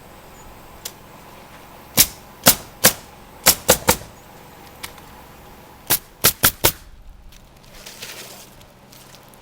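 Nails being driven into roof shingles: ten sharp strikes in two quick groups, six starting about two seconds in and four about six seconds in, some only a fifth of a second apart.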